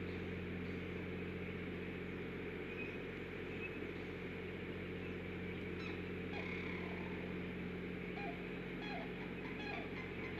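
Steady electrical hum and hiss, with faint short calls that dip in pitch repeating from about six seconds in.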